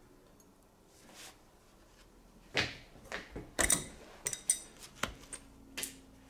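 Welded 7075 aluminium strip breaking in a steel vise during a bend test, the weld failing. About two and a half seconds in comes a sharp crack, then a run of metallic clinks and knocks with a short ring as the broken piece and the steel wrench strike the vise.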